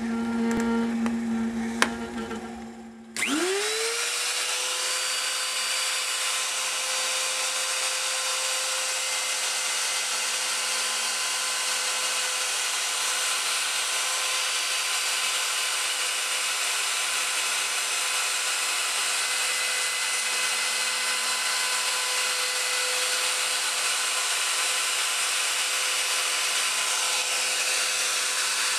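High-speed motorized cutter on an ornamental lathe switches on about three seconds in, whines up to speed within half a second, then runs steadily while cutting into the turning piece. Before it starts there is a lower hum and a couple of clicks.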